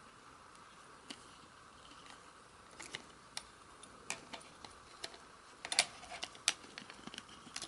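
Light, irregular clicks and taps from handling the opened plastic housing of a dashcam, sparse at first and coming more often after about three seconds, with a quick cluster of clicks around six seconds in, over a faint steady hiss.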